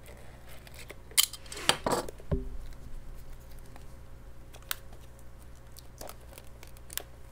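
A plastic 4K Blu-ray disc case being handled: scattered clicks and taps, a short crinkling rustle about two seconds in, and a soft thump just after.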